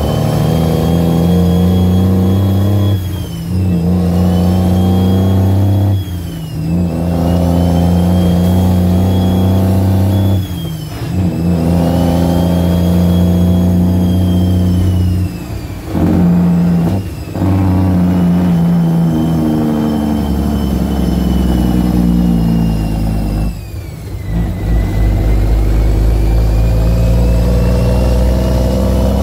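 Cummins L10 diesel in an International truck pulling through the gears of its 13-speed transmission, heard from inside the cab. The engine note drops out briefly at each of about six shifts and picks up again, with a high whine that sags at each shift and climbs back as the engine pulls.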